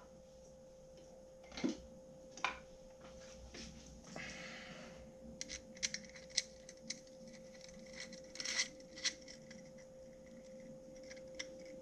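Faint scattered clicks and small taps of a screwdriver turning small screws to fasten a shoe mount onto a GoPro camera cage, with a short rustle of handling about four seconds in, over a faint steady hum.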